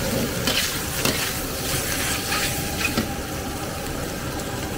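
Rice noodles and bean sprouts sizzling in a hot wok, with a metal spatula scraping and knocking against the wok several times in the first three seconds.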